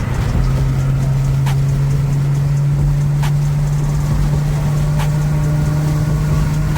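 Car driving at highway speed: a steady low engine drone over road and tyre rumble, with a faint click about every second and a half.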